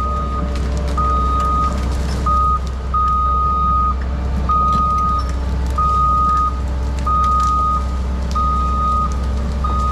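Cat 316 excavator's travel alarm beeping at one steady pitch about once a second, over its diesel engine running as the machine tracks backwards.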